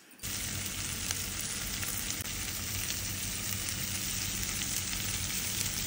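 Steady hiss with a low hum under it, cutting in abruptly just after the start.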